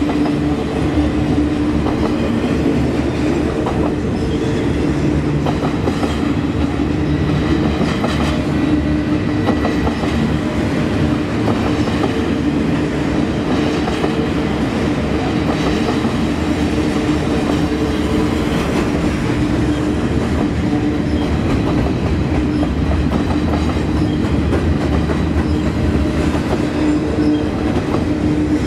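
Double-stack container freight train's well cars rolling past: a steady rumble with the irregular clatter of wheels over the rails and a steady hum running through it.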